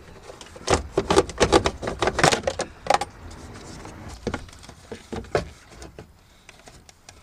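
Rapid, irregular clatter of metal hand tools and parts being handled, loudest in the first three seconds, then a few separate knocks.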